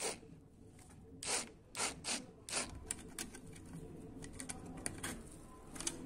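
Metal wire being twisted and bent with pliers against a sheet-metal lamp cap: a handful of sharp clicks in the first three seconds, then a run of lighter metallic ticks and scrapes.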